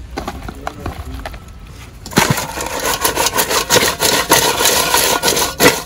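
Soft wet clicks of hands working seasoning into raw meat. About two seconds in, whole crayfish are tossed in a stainless steel pot: a loud, dense rattle and scrape of shells against metal.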